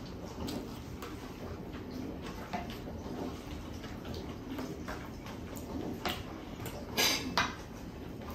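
Quiet eating and serving sounds: soft hand and mouth noises with small clicks, then two sharper clinks of a spoon against dishware a little after seven seconds in.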